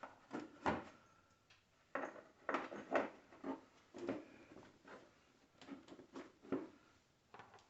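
Irregular light clicks and knocks of hand work: a bolt and washer being handled and fitted against a plastic panel.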